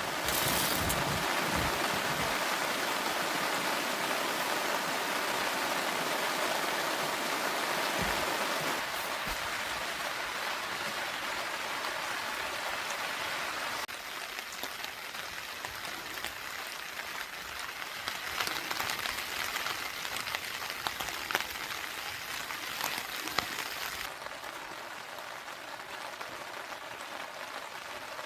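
Steady rain falling, with scattered louder drops ticking in the later part; the level steps down abruptly a few times.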